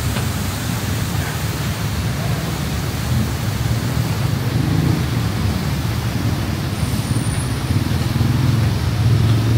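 City street traffic: a steady low rumble of vehicle engines and tyres under a constant wash of noise, growing louder near the end.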